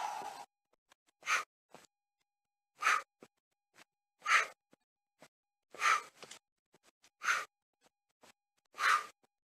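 A man breathing hard during high-intensity bodyweight exercise, with short, forceful breaths about every second and a half, seven in all.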